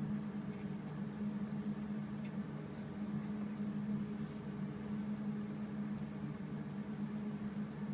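Steady low mechanical hum with a faint hiss, the room tone of a small enclosed room, with a couple of faint ticks in the first few seconds.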